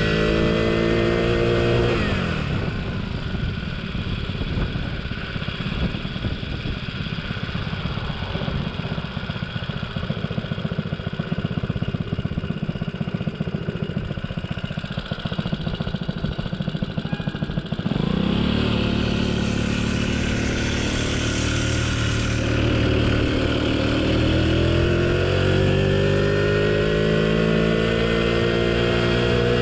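A DIY moped's 49cc engine heard while riding. Its note drops about two seconds in and sits under a rough, rumbling noise for a long stretch. From about 18 seconds the engine note comes back strongly and climbs in pitch a few seconds later as the moped speeds up.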